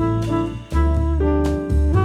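Background music: an instrumental track with a deep bass line, held melody notes and a steady beat.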